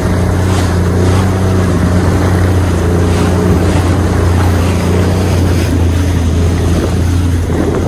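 Yamaha WaveRunner personal watercraft running steadily under way with a low, even engine hum, over the rush of water from its wake.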